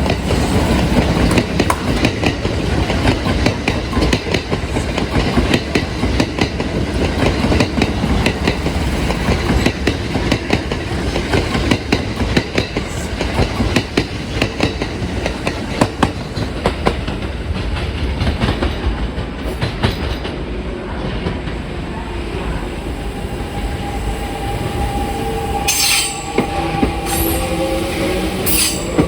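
Kintetsu 1252 series and 8600 series electric multiple unit train passing close by, its wheels clattering steadily over rail joints and points. A brief high wheel squeal comes about three-quarters of the way through, and a rising motor whine near the end.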